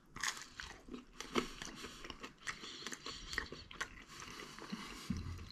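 A person biting into a slice of pizza and chewing it with the mouth close to the microphone: irregular small crunches and wet mouth clicks.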